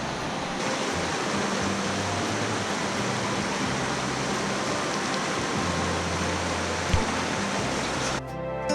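Steady rushing noise with no clear pitch, with a single short knock about seven seconds in. Music with plucked notes starts just before the end.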